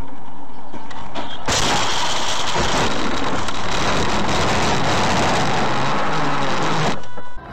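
Dashcam audio of a car crash: a sudden loud hit about a second and a half in, then several seconds of loud, overloaded noise that cuts off abruptly near the end.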